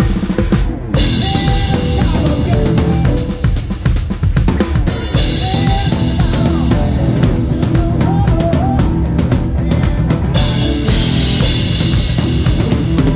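Live band playing, heard right at the drum kit: bass drum, snare and cymbals are loudest over guitar and keyboard. Cymbals wash in several stretches, about a second in, around five seconds in, and again near the end.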